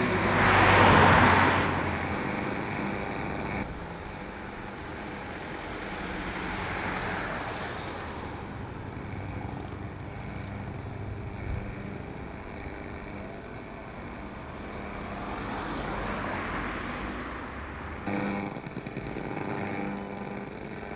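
Cars passing on a street: a loud pass about a second in, and two fainter passes that swell and fade, near the middle and near the end.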